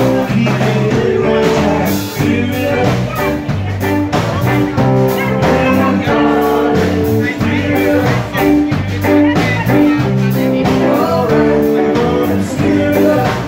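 Live amplified band playing: electric guitars and a drum kit keeping a steady beat, with a male singer's vocals.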